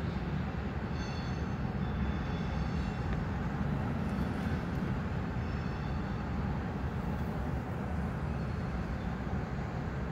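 Freight train cars rolling across a steel trestle bridge: a steady rumble of wheels on rail. Faint high-pitched wheel squeals come and go.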